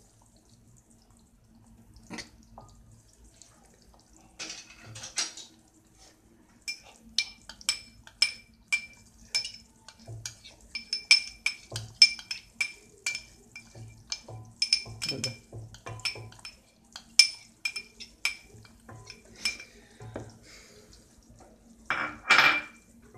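Kitchenware clinking while sugar syrup is stirred in a stainless steel saucepan with a wooden spoon and cream of tartar is tapped in: a run of quick ringing taps, two to three a second, through the middle, and a louder scrape of a metal spoon on a china plate near the end.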